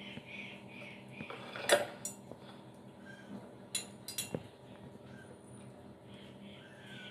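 Small knife blade clicking against a hard rolling board while it cuts rolled dough into strips: a handful of sharp clicks, the loudest about two seconds in, over a low steady hum.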